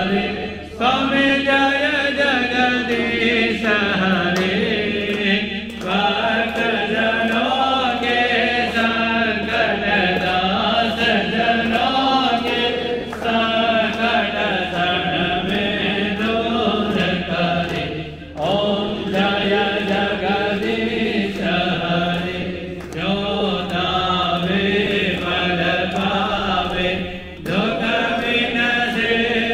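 Hindu devotional chanting at a Lakshmi puja: voices sing an aarti prayer together in a steady melodic chant. The phrases are broken by short pauses every few seconds.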